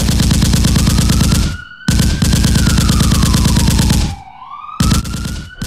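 Outro sound effects: a police siren wailing, rising and falling slowly, over a rapid, even rattle like machine-gun fire. It cuts out twice for about half a second, once before the middle and once near the end.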